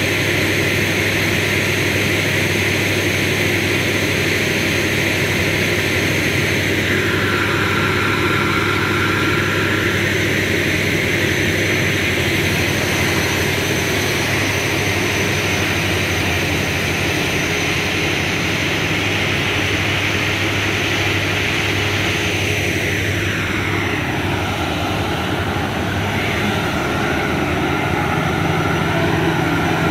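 Bangladesh Railway intercity passenger train rolling slowly past on the track: a steady, loud mechanical drone with the rumble of coach wheels on the rails.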